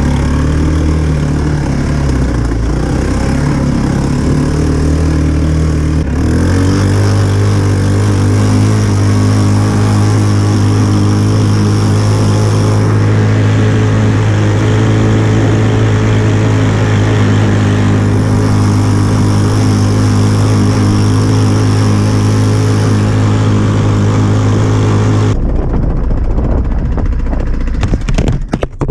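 150cc quad bike engine running hard under throttle. Its pitch steps up about six seconds in and then holds steady. Near the end the engine note breaks off into irregular rattling noise.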